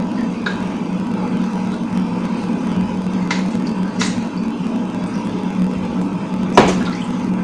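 A steady low mechanical hum, with a few sharp clicks and knocks of chicken and utensils being handled while the chicken is washed; the loudest knock comes about six and a half seconds in.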